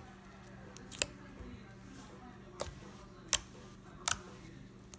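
Glossy slime being squeezed and pressed by hand, giving four short, sharp clicking pops spaced roughly a second apart, starting about a second in.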